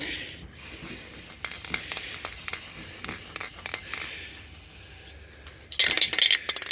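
Aerosol spray-paint can spraying in a steady hiss with small ticks. Near the end it gives louder, uneven spurts as the can runs out.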